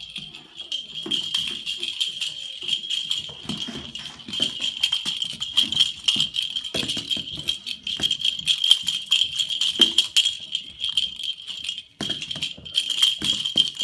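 Continuous high, jingling rattle with dense rapid clicks and a few louder knocks, briefly broken off about twelve seconds in.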